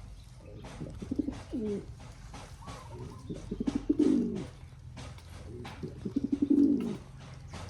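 Pigeon cooing: three low rolling coos, each a quick run of pulses ending in a falling note, about a second in, around four seconds in and near the end. Faint light clicks run between them.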